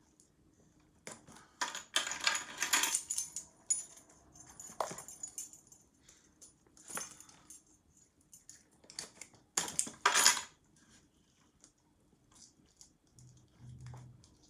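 A key scraping at a phone box's plastic shrink-wrap to cut it open, with keys jangling and the wrap crinkling and tearing. It comes in several separate scraping bursts, the loudest about two seconds in and again near ten seconds.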